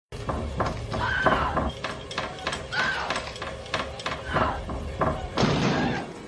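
A woman screaming and whimpering in terror over a series of sharp knocks, then a louder crash near the end as an axe splits through a wooden door.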